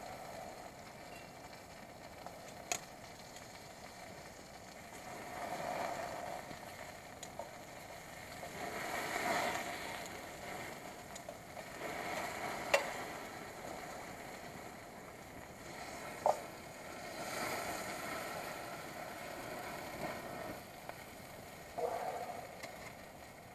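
A campfire with a skillet set in the flames: sizzling that swells and fades every few seconds, with a few sharp pops.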